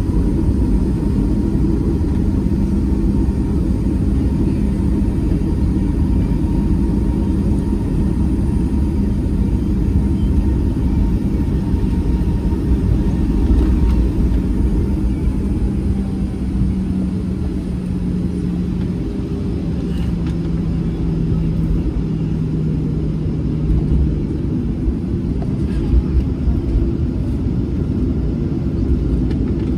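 Boeing 737-700 taxiing, its CFM56-7B jet engines running at low power, heard inside the cabin as a steady low rumble. A humming tone in it steps down in pitch about two-thirds of the way through.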